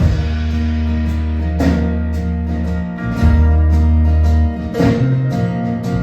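Live band music kicking in: strummed guitar chords over long, deep bass notes.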